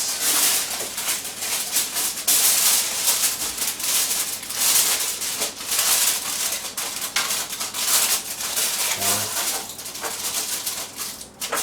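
Aluminium foil crinkling and rustling as it is handled: a dense, irregular crackle that runs on with no let-up.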